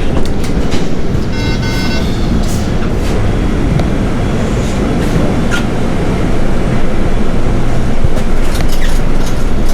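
City bus in motion, heard from inside: steady engine and road rumble with rattles and clicks, and a short steady electronic tone about one and a half seconds in.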